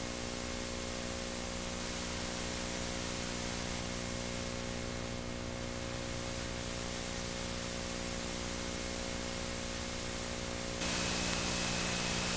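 Steady hiss and hum from a blank stretch of a VHS tape's audio track, with no programme sound. Near the end the hiss grows a little louder and a faint steady high tone comes in.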